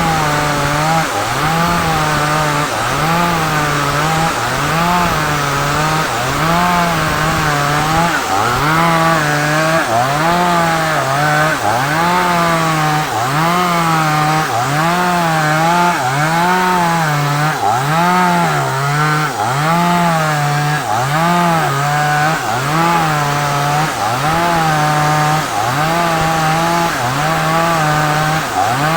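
Two-stroke chainsaw running at high revs while cutting through a sengon log. The engine pitch dips and climbs back about once a second, in a steady rhythm, as the chain bites into the wood and frees up.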